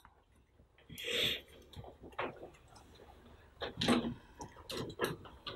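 Quiet classroom room sound: scattered light clicks and taps, with a short breathy hiss about a second in.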